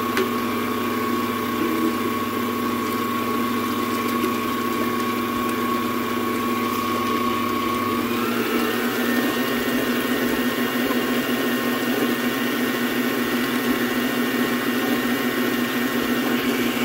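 Electric mixer motor running steadily while mixing slime in a bowl, its hum stepping up in pitch about eight seconds in as the speed is raised; it cuts off suddenly at the end.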